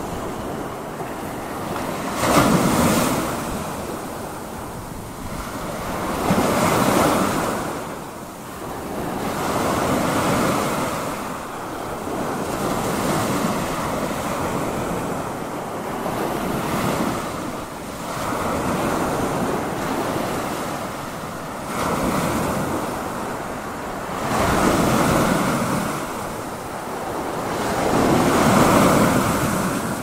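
Ocean surf breaking and washing in, the noise swelling and falling back every three to four seconds.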